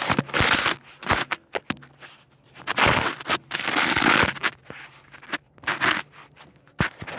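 Camera handling noise: the camera scrapes and crunches against gravel and a terracotta pot in several bursts, the longest near the middle, with sharp knocks in between.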